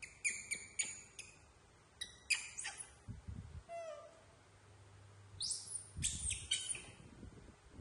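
Young macaques giving short, high-pitched squeaks and chirps in several quick clusters, one rising sharply in pitch about halfway through. Two low thumps of movement come between them.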